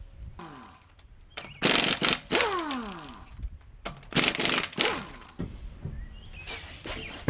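Pneumatic impact wrench with a 13/16" socket hammering lug nuts loose on a car wheel: several short rattling bursts, each trailing off in a falling whine as the air motor spins down.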